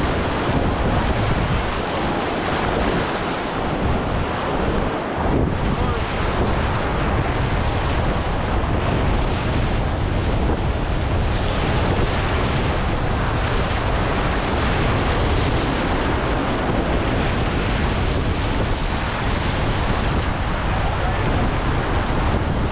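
River rapids at high water rushing and churning around a raft, a steady dense roar, with wind buffeting the camera microphone.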